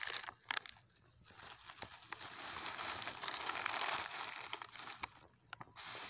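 Plastic snack wrappers crinkling as a hand crumples them and stuffs them into a clear plastic bag, with a few sharp crackles near the start and a longer stretch of dense crinkling in the middle.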